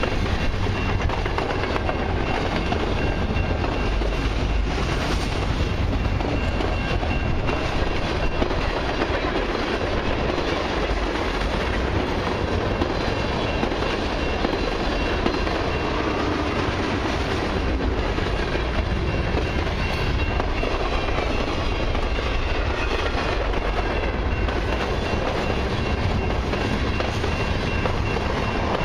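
Freight train cars rolling past close by: steel wheels clattering over the rail joints and the cars rumbling steadily, without a break.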